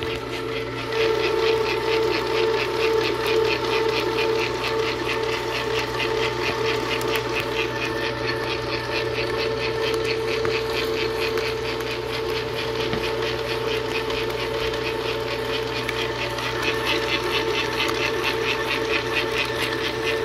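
Hobart N50 stand mixer running steadily, its flat beater turning through stiff cookie dough: an even motor and gear hum with a fast, regular ticking over it.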